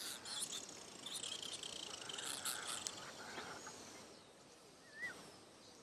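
Quiet wild ambience of high chirping and twittering from small birds and insects, busiest in the first three seconds. About five seconds in comes one short rising-and-falling whistle.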